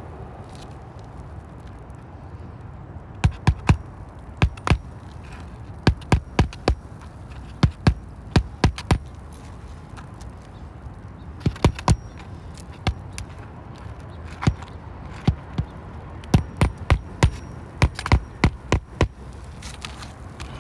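Hand hammer striking in quick clusters of two and three sharp blows, with short pauses between clusters, as when nailing down an asphalt roof shingle.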